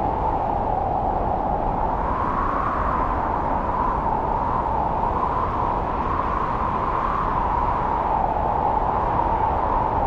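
Strong wind blowing through a snow-covered forest: a steady rushing hiss whose pitch slowly wavers up and down.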